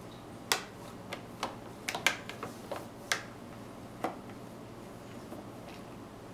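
A spoon clicking and tapping against a plastic high chair tray and dish: about nine short, sharp taps, irregularly spaced, in the first four seconds, then quiet tapping stops.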